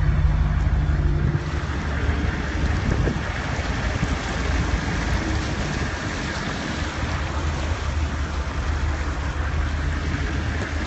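A vehicle's engine running with a steady low rumble and a wash of water noise, heard from inside the cab as it drives through a flooded street.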